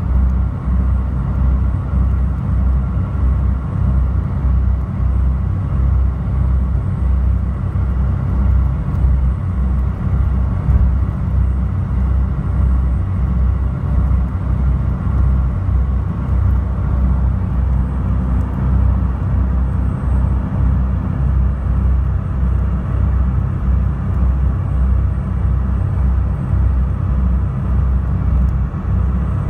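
High-speed passenger boat under way, heard from inside the cabin: the engines and hull give a loud, steady low rumble with a faint steady hum above it.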